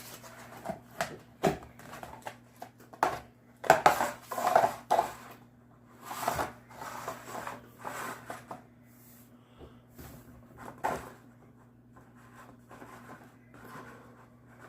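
A Pringles can being handled to take one chip out: a scatter of clicks, taps and rustles, busiest about four to five seconds in.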